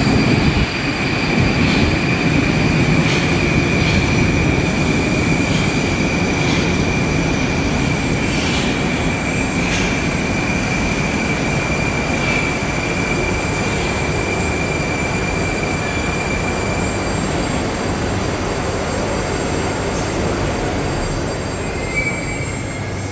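Moscow metro train of the Moskva type pulling into the station and braking to a stop, its rumble slowly fading. A steady high whine runs with it and stops about seventeen seconds in, as the train comes to rest.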